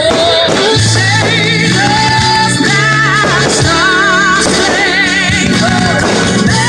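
Music with a singer, held notes sung with vibrato over a steady accompaniment.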